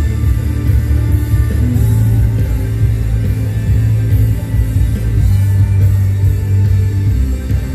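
Electric guitar played live over rock accompaniment with a heavy, steady bass.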